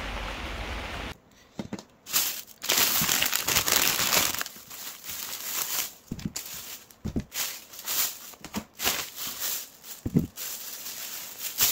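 A steady hiss that cuts off about a second in, followed by plastic packaging crinkling and rustling in irregular bursts, with a few light knocks.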